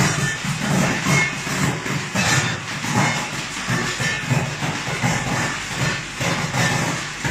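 JSUN raisin colour sorting machine running: a steady hiss from its compressed-air ejectors over a low machine hum that swells and falls about twice a second.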